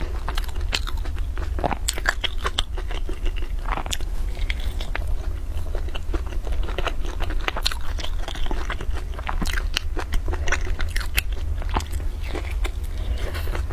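Close-up eating sounds of a crisp pan-fried flatbread: the crust crackling as it is torn and bitten, with crunching and chewing in many small sharp clicks. A steady low hum runs underneath.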